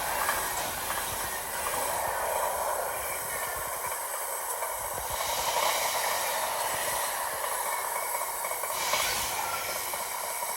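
Freight train behind a Class 66 diesel locomotive passing through at speed: a steady rushing noise of the wagons running over the rails.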